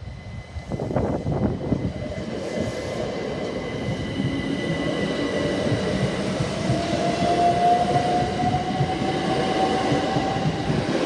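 Southern Class 377 Electrostar electric multiple unit pulling away and accelerating, with a rumble of wheels on the rails. From about halfway through, its traction motors whine, slowly rising in pitch as it gathers speed.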